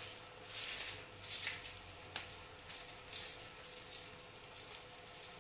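Garlic clove being peeled with a small kitchen knife: faint scraping and rustling of the papery skin, with a light click about two seconds in.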